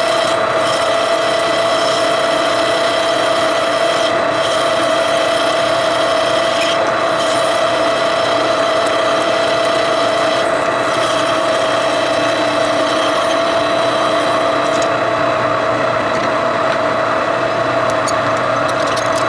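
Machine tool cutting metal: a steady whine with a rough, rasping cutting noise over it. The high hiss drops away about fifteen seconds in while the machine keeps running.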